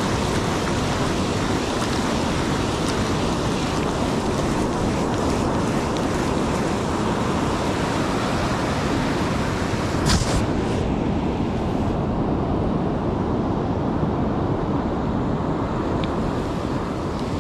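Steady rush of surf breaking on a sandy beach, with wind on the microphone. A single sharp knock about ten seconds in, after which the sound is duller.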